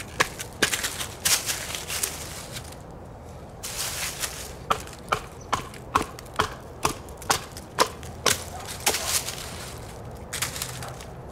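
A heavy TOPS Fieldcraft bushcraft knife chopping down into a dry, dead stick to split it: a run of sharp woody knocks, about two a second, with a pause about three seconds in and softer rustling between the strokes.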